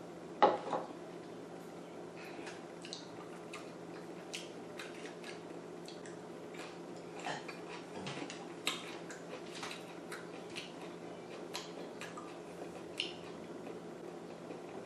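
Close-up eating sounds: chewing with small wet mouth clicks scattered every second or so over a steady low hum. About half a second in, a sharp knock as a small bowl is set down on the wooden table.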